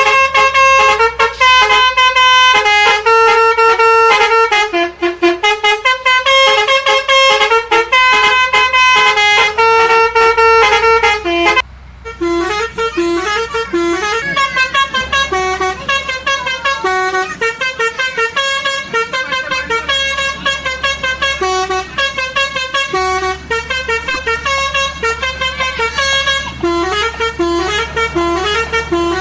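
Basuri 'telolet' multi-tone bus horn playing melodies in quick stepped notes, breaking off briefly about twelve seconds in and then going on with a different, quicker tune.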